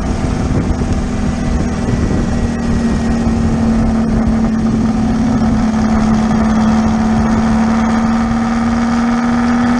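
Car engine droning at a steady cruising speed, one unchanging note over road and wind noise, heard from inside the moving car.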